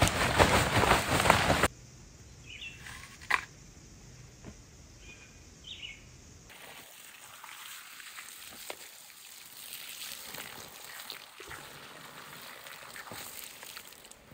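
A brief burst of loud rushing noise, then a few short bird chirps. From about halfway in, water poured from a container splashes onto a campfire's hot coals and ashes, hissing steadily as they are doused and steam rises.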